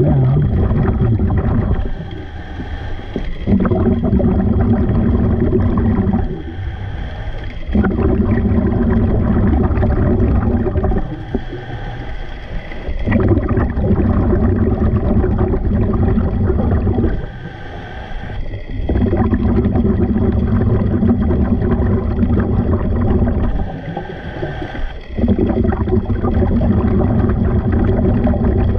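A scuba diver breathing through a regulator underwater, a slow, even cycle of long, loud, rumbling stretches broken by short quieter pauses, about five breaths in all.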